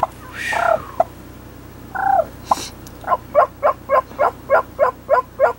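Wild turkeys calling: two separate calls in the first two seconds, then a run of about ten short, evenly spaced notes at roughly four a second.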